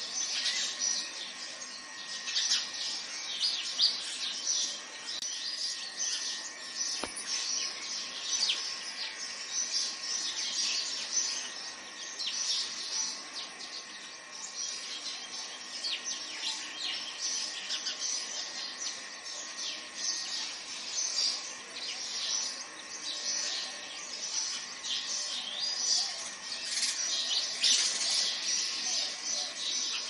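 A dense chorus of many small songbirds chirping and twittering without pause, short high notes overlapping one another throughout.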